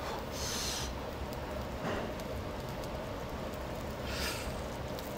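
Chewing and gnawing at grilled lamb rib meat on the bone, with a few brief hissing mouth noises about half a second and about four seconds in, over a steady low background hum.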